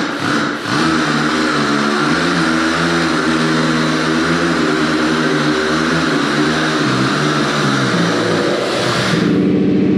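Bulldozer diesel engine running hard under hydraulic load as the ripper lifts the tile plow shank, a steady engine note with a strong hiss over it. The engine drops back about nine seconds in.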